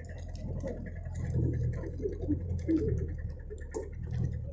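An off-road jeep's engine running at low speed as it crawls over a rough dirt track, a steady low drone with quick, irregular clicking and rattling over it.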